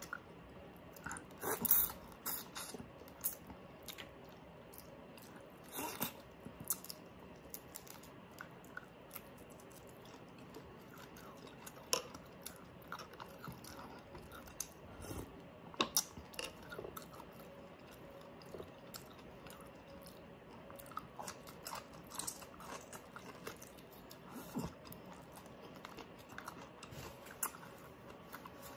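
Close-miked chewing and crunching of crispy pata (crispy pork leg skin), with sharp crackles scattered irregularly through it. The loudest crunches come about two seconds in.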